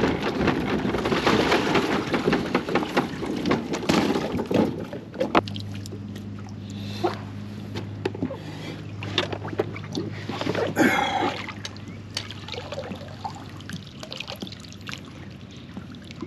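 Water splashing and sloshing around a small boat, with scattered knocks. A low steady hum joins about five seconds in and stops near the end.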